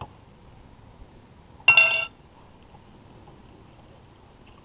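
A metal spoon clinking once against a glass bowl, with a short bright ring, about two seconds in.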